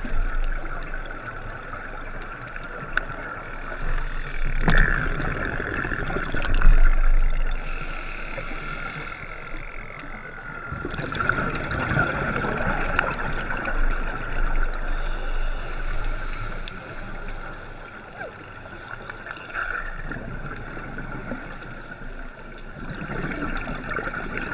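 Scuba diver's regulator breathing and exhaled bubbles heard underwater through a GoPro's waterproof housing: a muffled, watery rush that swells and fades every few seconds with each breath.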